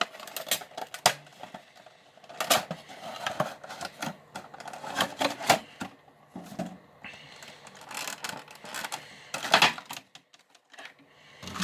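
A Funko Pop cardboard box and its plastic insert being handled to take the figure out: irregular clicks, taps and crinkling, busiest around the middle, with a louder clatter about nine and a half seconds in.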